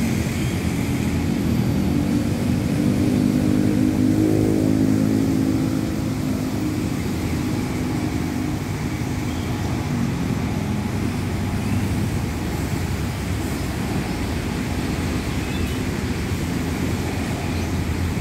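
Several helicopters flying over together: a droning hum that is loudest about four seconds in and then fades away by about nine seconds, leaving a steady background rush.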